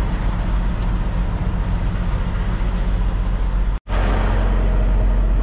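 Heavy diesel truck engine idling with a steady low hum. The sound cuts out for an instant about four seconds in, then carries on unchanged.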